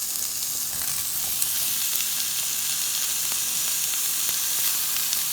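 Chicken breast pieces frying in a non-stick pot, a steady high sizzle with a few faint clicks.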